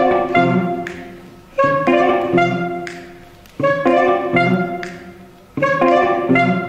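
Live ensemble music playing a repeated riff: a short phrase of quick notes that starts sharply and fades away, starting again about every two seconds.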